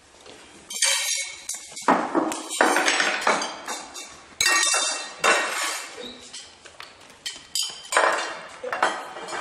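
Plates and cutlery clattering as they are set down and moved about on a table: a busy run of clinks and knocks, starting about a second in.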